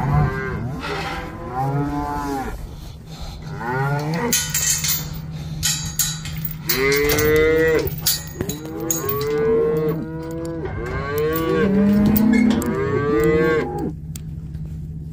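Several beef cows bawling, one long moo after another with the calls often overlapping, until they stop about 14 seconds in.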